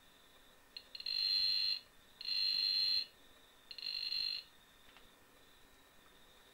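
Piezo element speaker of a homemade Matchless induction-balance metal detector giving three high-pitched beeps, each under a second long, as an iron hammer is held near its coils: the detector signalling the metal. A faint steady high tone lies underneath.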